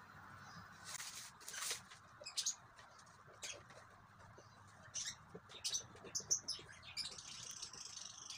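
Thin plastic sheet rustling and crinkling in irregular crackles as it is unfolded and smoothed by hand over a cardboard box, busiest in the second half.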